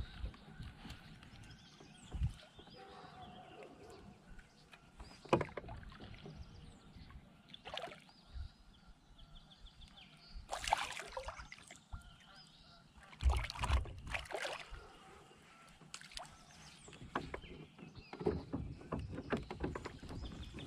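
Scattered knocks, clicks and rustles of a fishing rod and reel being handled in a plastic kayak, with a short rushing whoosh about ten seconds in as a cast goes out.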